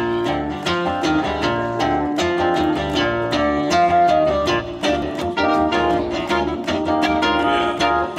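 Live band playing an instrumental intro: guitar picking a quick, even rhythm over plucked upright double bass notes.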